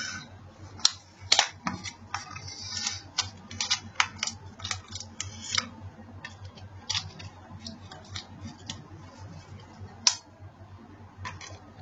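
Irregular small clicks and taps, a few a second, with a louder click about ten seconds in, typical of handling small hard objects.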